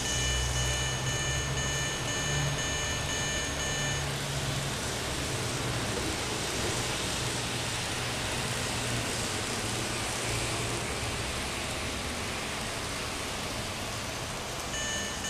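Level-crossing signal's electronic alarm sounding, switched by four sensors on a double track; it stops about four seconds in, when the train has left both sections, and starts again near the end. Under it and between runs a steady rushing noise with a low hum.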